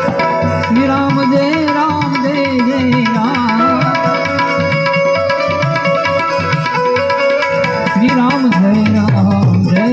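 Instrumental passage of a Gujarati bhajan: tabla keeps a steady rhythm under a sliding, wavering melody line and sustained held notes.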